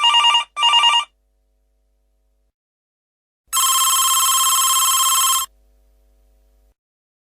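Office telephone ringing: two short trilling rings in quick succession, then after a pause a single longer trilling ring of about two seconds.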